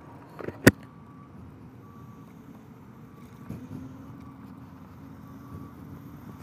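Electric scooter riding across asphalt, a low steady rumble of wheels and motion. Under a second in comes one sharp knock against the helmet as the rider's hand reaches it, and faint short beeps repeat in the background.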